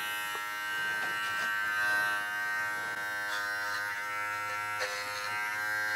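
Joyzee Hornet adjustable-blade dog clipper running on high at its 10 blade setting, a steady electric buzz as it shaves the hair from a dog's paw pads.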